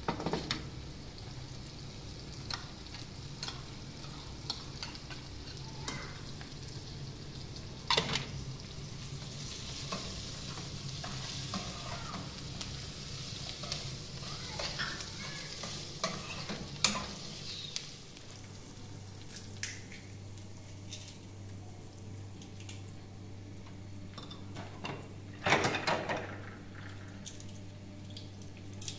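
Food sizzling in a frying pan while being stirred, with scrapes and knocks of a utensil against the pan; the loudest knocks come about 8 s in, about 17 s in, and near the end.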